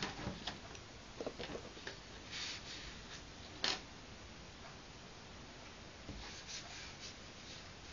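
Cheap watercolour brush stroking acrylic paint across paper: a few soft brushing sounds with scattered light clicks and taps, and one sharper click about three and a half seconds in.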